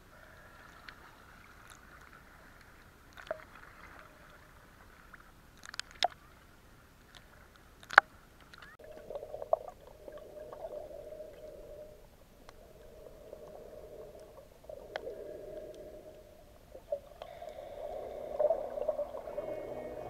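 Muffled underwater water sound picked up by a camera in a waterproof housing while snorkeling. There is a low, uneven swishing, a few sharp clicks and knocks against the housing, and music begins to fade in near the end.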